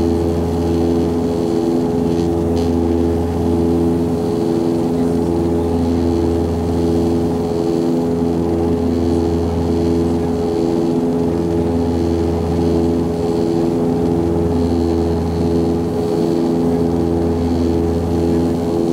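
Antonov An-24 turboprop airliner, heard in the cabin: its two Ivchenko AI-24 engines and propellers drone steadily, in a deep hum with a slow, regular throb that swells and fades every few seconds.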